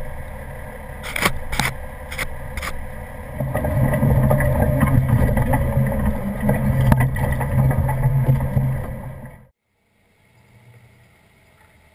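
A few sharp knocks as the camera is handled on its mount beside the wheel, then a Jeep Wrangler TJ driving along a gravel trail, its engine a steady low drone heard from the low wheel-mounted camera. The sound cuts off abruptly near the end.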